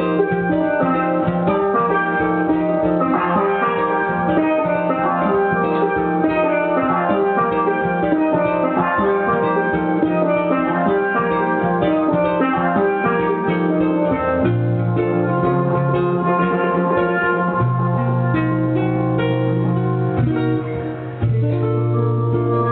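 Live music played on steel pans: a dense run of quick, bell-like pitched notes over sustained low bass tones that shift pitch about two-thirds of the way through and briefly drop out near the end.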